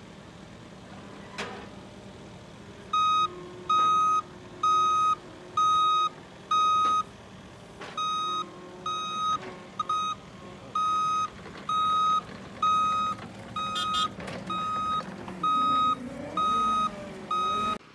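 Backup alarm of a John Deere compact track loader beeping about once a second as the machine reverses down a truck's tilted bed, its engine running underneath.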